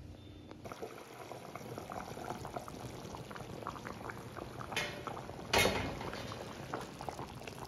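Chicken curry (rassa) bubbling in an open brass pot, a steady patter of small pops. The chicken is cooked through and the oil has risen to the top. A louder knock comes about five and a half seconds in.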